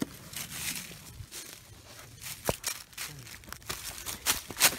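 Dry fallen oak leaves crunching and rustling underfoot as someone walks through leaf litter, in irregular crackles, the loudest one near the end.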